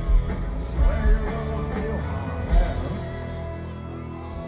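Live rock band playing loud through the PA: electric guitars, bass and heavy drums. The drums stop a little under three seconds in and held guitar chords ring on.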